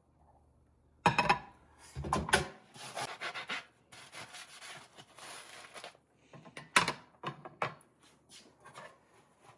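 Kitchen cleaning: irregular rubbing and scrubbing with several sharp clacks of things being handled and set down, the loudest about a second in and again near seven seconds.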